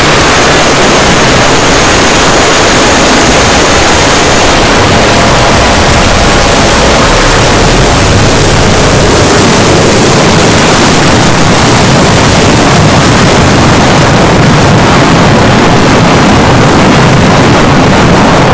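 Edited jumpscare sound effect pushed to extreme loudness: a harsh, distorted wall of noise across all pitches, with a faint high whistle in the first few seconds.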